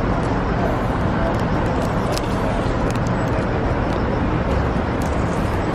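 Steady low rumble of city traffic, with a few light clicks over it.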